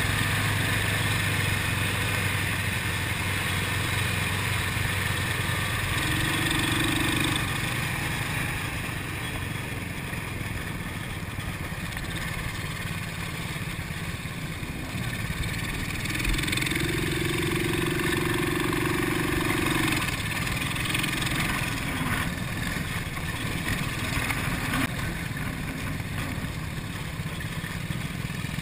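ATV engine running steadily while riding a dirt trail, with wind and tyre noise. A higher engine note comes in briefly about six seconds in and again for a few seconds past the middle.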